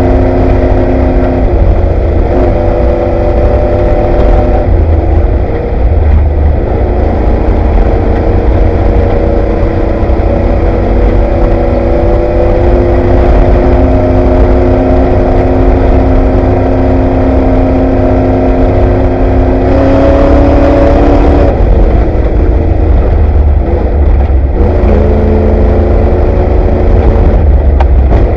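Ford Bronco off-road race truck's engine heard from inside the cab, running hard under load. Its pitch steps up and down several times with the throttle and revs higher for a moment about twenty seconds in, over a heavy constant low rumble.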